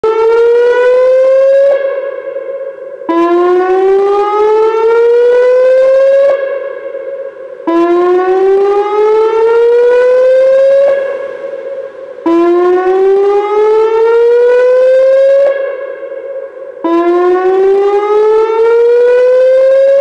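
Whelen WPS-2905 electronic outdoor warning siren sounding its whoop tone: loud, repeated rising sweeps, each climbing for about three seconds and starting again about every four and a half seconds, with a quieter dip between whoops.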